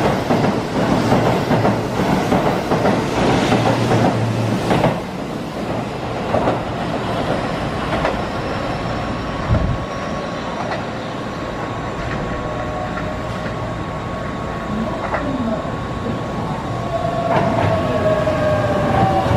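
Keihan electric train running through the station, its wheels rumbling with rhythmic clicking, the noise dropping away sharply about five seconds in as the last car goes by. Near the end a second train pulls in, its motors giving a whine that falls in pitch as it slows.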